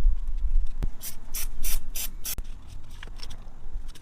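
Cleaning metal fragments out of a Harley-Davidson primary case: rubbing and scraping, with a quick run of about five short, high hissing strokes about a second in.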